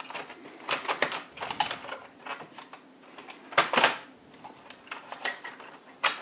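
Irregular clicks and clatter of plastic and metal parts being handled while taking apart an InFocus LP640 projector, with one louder knock about three and a half seconds in.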